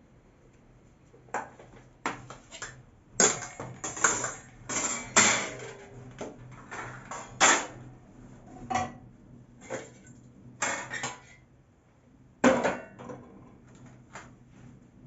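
Metal cutlery clinking and scraping against a dish while someone eats, in a series of irregular, sharp strikes.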